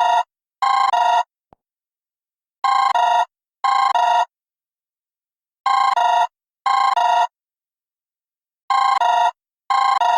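Android incoming-call ringtone in the style of an old telephone double ring: each ring trills rapidly between two tones, and the rings come in pairs about a second apart, repeating every three seconds.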